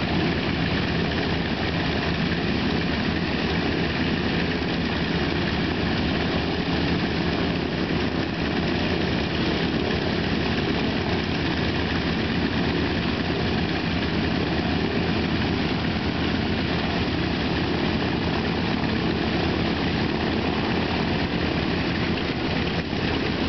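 Radial engines of North American T-28 Trojan trainers idling together with propellers turning, a steady rough running that holds even throughout.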